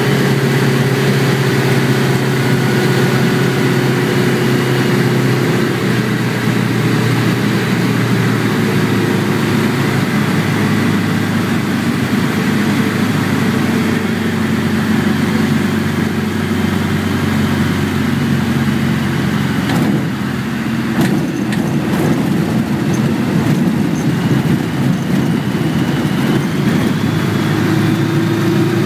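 A single-engine floatplane's piston engine and propeller running steadily, heard from inside the cockpit. The engine note shifts in pitch a few times.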